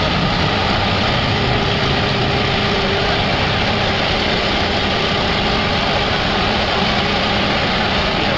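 Heavy diesel machinery engine running steadily under a dense, even noise, with no sharp impacts.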